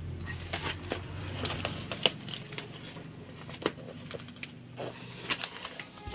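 Items being handled and unpacked: irregular small clicks, knocks and crinkles.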